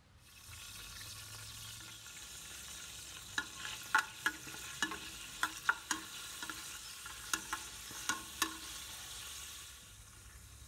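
Curry leaves frying in hot oil in an aluminium pressure cooker, a steady sizzle, while a metal spoon clinks against the pot about a dozen times as the leaves are stirred. The sizzle drops away near the end.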